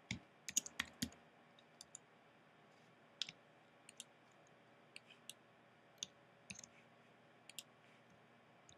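Faint computer keyboard keystrokes and mouse clicks: a quick run of key taps in the first second or so, then single clicks scattered through the rest.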